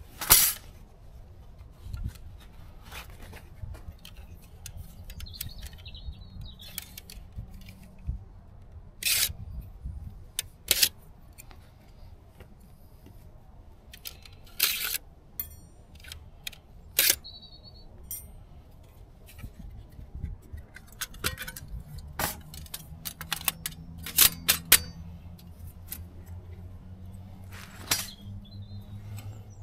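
Sharp metallic clicks and clinks, a second or more apart, as the stainless steel panels of a Firebox folding wood stove are handled and slotted together, with soft handling rustle in between.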